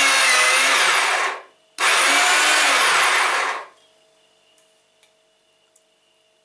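Electric meat grinder motor running with a steady whine. It cuts off about a second and a half in, then runs again for about two seconds and stops.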